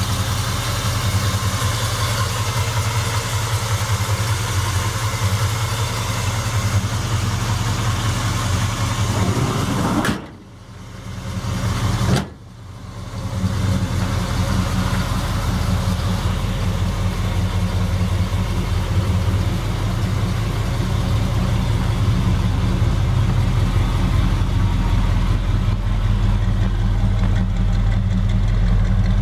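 Chevrolet 454 big-block V8 idling steadily. Its sound drops away for about two seconds near the middle and comes back with a sharp click.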